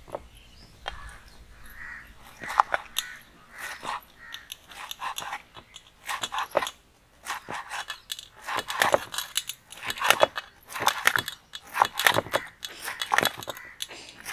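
Knife chopping pineapple into small pieces in a metal plate: an uneven run of quick cuts and knocks of the blade on the plate, busiest in the second half.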